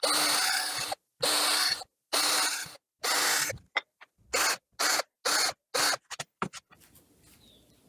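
Electric drill boring holes in wood in repeated bursts, each starting and stopping sharply: four longer runs, then a quicker series of short ones.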